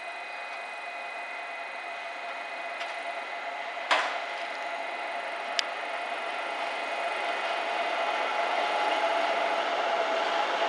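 Electric freight locomotive and its tank wagons approaching and passing: a steady rumble with a faint high whine that grows louder throughout. There is a sharp click about four seconds in and a smaller one a second and a half later.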